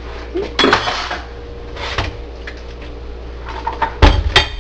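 Plastic bottle and plate knocking and clattering in a stainless-steel kitchen sink as they are handled. There are a few scattered knocks early, then a burst of loud knocks about four seconds in, over a steady low hum.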